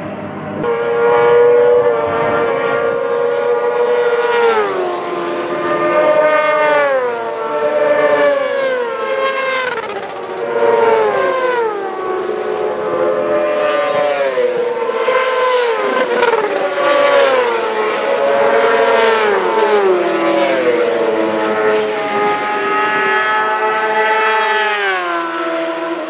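Several classic racing sidecar engines at high revs, their notes holding and then dropping in pitch again and again as the outfits pass one after another.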